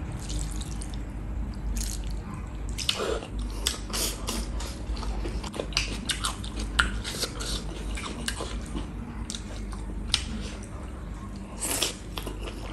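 Spicy beef gravy poured from a steel bowl and dripping onto rice, then wet squelching and clicking as bare fingers mix the rice and gravy. Near the end comes a bite into a cooked mustard-leaf stem.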